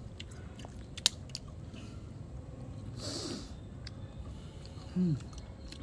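Eating sounds from someone eating grilled clams: a sharp click about a second in, chewing, a short hissy burst near the middle, and a brief falling vocal sound near the end.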